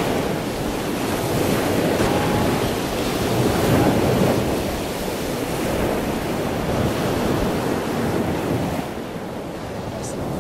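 Steady rushing noise of wind and surf at the seashore.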